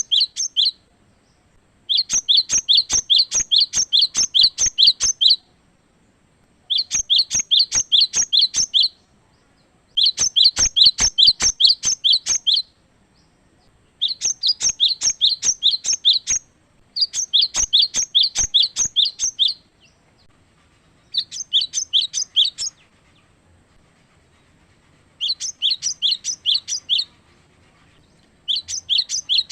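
A cinereous tit (gelatik batu) singing loud bouts of rapidly repeated high two-part notes, about four a second, each bout lasting two to three seconds with short pauses between.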